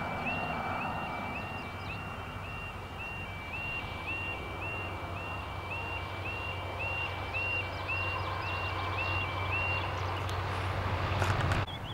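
Level crossing yodel alarm: a two-tone warble repeating about twice a second while the barriers lower, stopping about ten seconds in once they are down. A low vehicle engine rumble runs underneath, growing louder near the end before cutting off suddenly.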